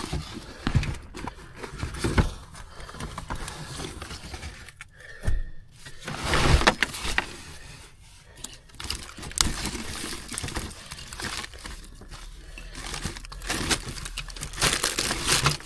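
Rustling, crinkling and knocking of clothes and belongings being rummaged through, in irregular bursts, with the loudest clatter about six seconds in.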